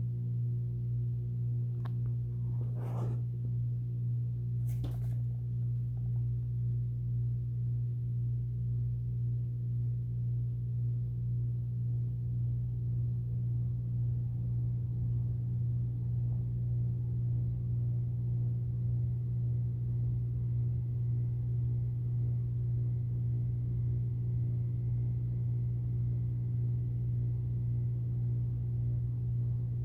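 Tempstar air conditioner running with a low electrical hum that swells and fades in a regular rhythm. Two brief sharp clicks come about three and five seconds in.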